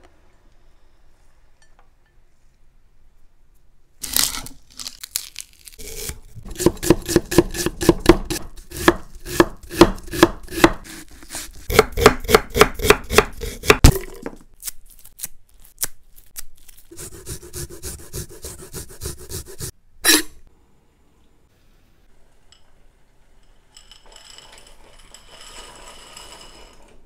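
A knife chopping garlic on a wooden cutting board: a knock about four seconds in, then a quick, even run of strikes, about three a second, later one more knock. Near the end, faint hissing as dry penne goes into a pot of boiling water.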